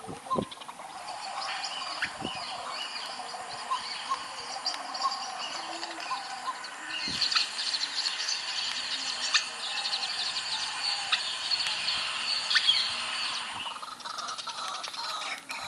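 Birds chirping and calling together in a dense, overlapping chorus. It swells louder about halfway through and eases off near the end.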